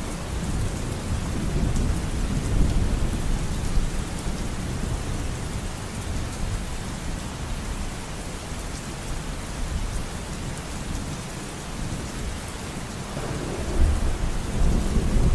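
Steady rain with a low rumble of thunder, the rumble swelling near the end.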